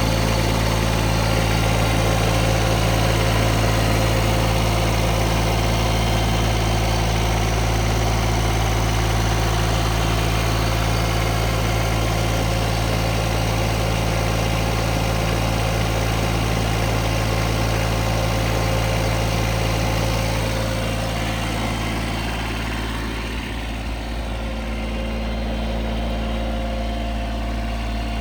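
2019 Bobcat S70 skid steer's small three-cylinder diesel engine idling steadily. About three-quarters of the way through, its note drops a little and shifts, then settles at a slightly lower level.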